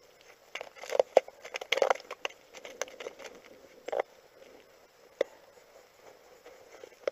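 Boots crunching and clicking on the frozen ice as a person walks up, an irregular run of crunches in the first few seconds, then only a few scattered ones.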